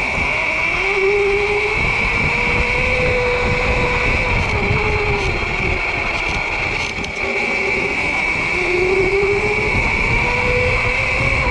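Sur-Ron electric dirt bike's motor whining, with a steady high whine and a lower tone that rises and falls as the speed changes. A low rumble of wind on the microphone runs underneath.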